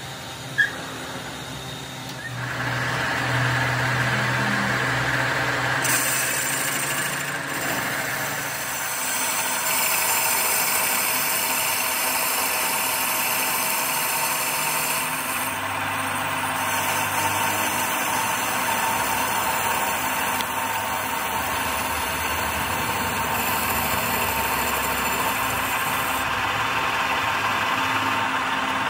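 A belt-driven metal lathe running, its cutting tool facing a spinning metal disc blank: a steady machine hum mixed with the hiss of the cut. A sharp click comes about half a second in, and the lathe starts up about two seconds in.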